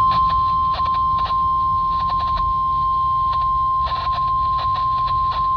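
NOAA Weather Radio's steady 1050 Hz warning alert tone, played through a RadioShack 12-254 weather radio's speaker and signalling an incoming warning broadcast. Irregular crackles of static break through the tone over a low hum.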